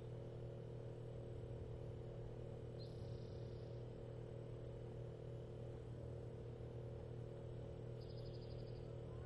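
Faint, steady low hum, with a brief high chirp about three seconds in and a short, rapid high trill near the end.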